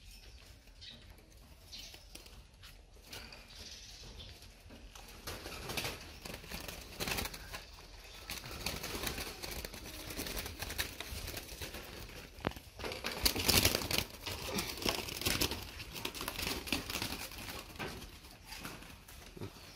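Spotted doves cooing, mixed with rustling and scraping noise that grows louder about a quarter of the way in and peaks about two-thirds through.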